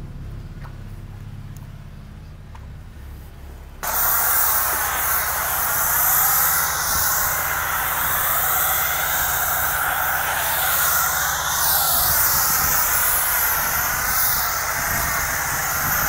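A low steady motor hum, then about four seconds in a pressure-washer foam cannon starts spraying with a loud, steady hiss that carries on over the hum, laying thick foam on the car.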